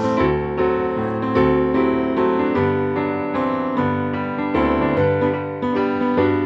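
Piano music, with notes and chords struck at an even, unhurried pace over low bass notes.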